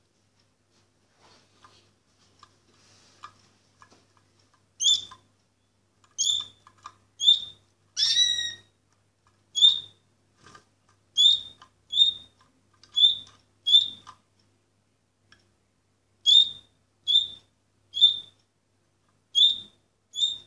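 Orpheus canary singing a series of short, clear notes that each slide quickly down in pitch, roughly one a second, starting about five seconds in. Before that there are only a few faint soft sounds.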